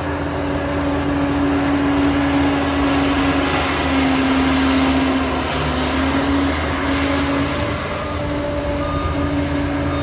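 Liebherr PR 746 crawler dozer's diesel engine running under load as the blade pushes soil. A held tone over the engine note wavers slightly in pitch.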